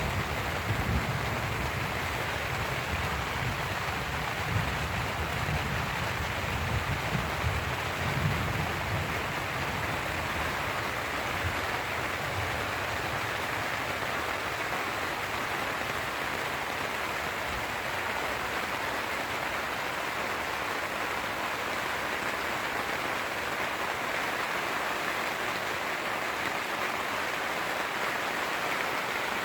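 Steady heavy rain falling on a Cabela's Big Horn 3 tent. A low thunder rumble dies away over the first ten seconds or so.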